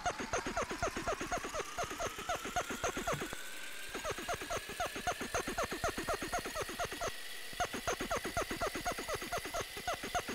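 A cloth rubbed fast back and forth on a glass lightboard to erase marker, squeaking on each stroke at about five strokes a second. It stops briefly twice, about three and a half and seven seconds in.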